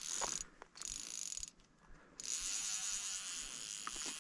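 A 6-weight fly reel's ratchet drag buzzing as a hooked carp pulls line off against a tight drag: two short runs, then a long steady run from about two seconds in.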